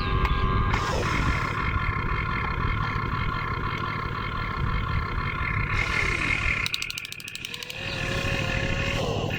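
Radio-controlled model construction machines running: a steady whine of small motors over a low rumble. The sound dips briefly about seven seconds in.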